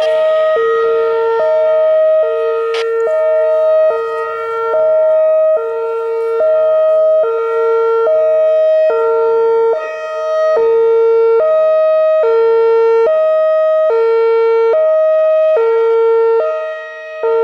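Whelen Vortex R-4 electronic warning siren sounding its hi-lo tone: two steady pitches alternating, each held a little under a second. The sound swells and fades every six or seven seconds as the rotating horn array turns past.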